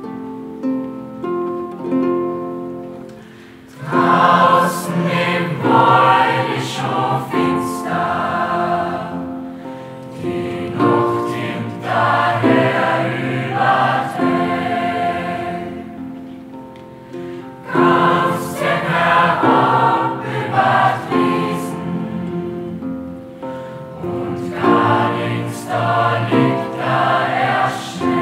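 A school choir singing with a plucked-string accompaniment. Plucked notes play alone for the first few seconds, then the choir comes in about four seconds in and sings in phrases with short breaths between them.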